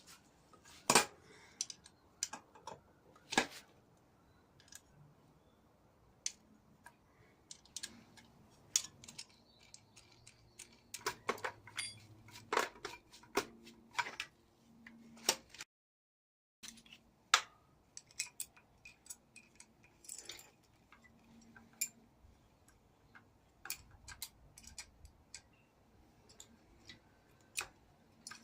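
Hand tools and metal parts clicking and clinking irregularly while the handcycle's crank is taken apart, with short bursts of several quick clicks between quieter spells.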